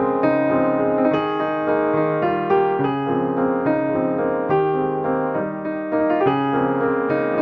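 Background music: a gentle piano melody with chords, notes changing at a steady pace.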